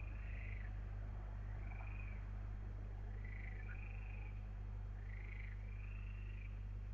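Repeated short animal calls, each rising and falling in pitch, about one a second, over a steady low hum.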